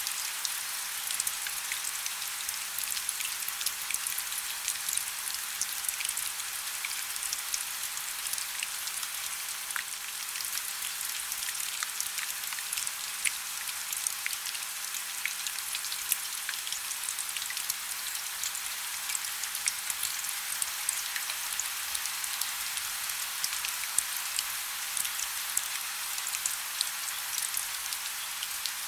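Heavy rain falling steadily, a dense hiss with many individual drops ticking sharply on a hard surface.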